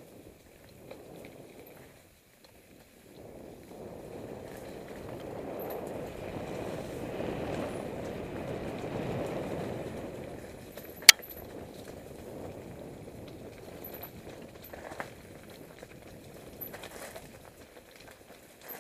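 Mountain bike rolling down a leafy, rocky trail: a steady noise of tyres on the ground, growing louder through the middle, with one sharp click about eleven seconds in and a few lighter clicks after.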